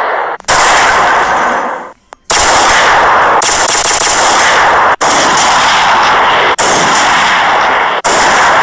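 Gunfire sound effects, loud and distorted, in long unbroken bursts of rapid automatic fire. Each burst lasts a second or two and stops for only a moment before the next.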